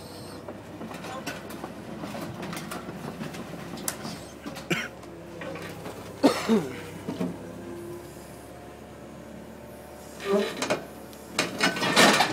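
Caterpillar hydraulic excavator's diesel engine running steadily while its bucket works a concrete block wall in a demolition. Concrete scrapes and crunches against the bucket, loudest about six seconds in and again near the end as the wall section gives way.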